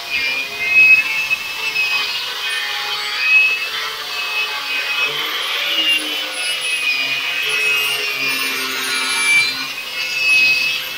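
Metabo angle grinder running under load, its abrasive disc grinding paint and body filler off a car's steel body panel. A steady high whine with rasping that swells and dips as the disc is pressed on and moved.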